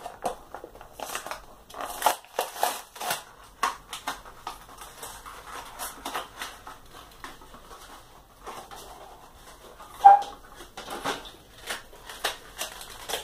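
Plastic blister packaging of a die-cast toy car being pulled and twisted open by hand, crinkling and crackling irregularly, with a short squeak about ten seconds in.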